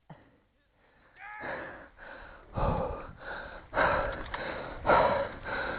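A person breathing hard in uneven puffs, with a short vocal sound about a second in; the breaths grow louder toward the end.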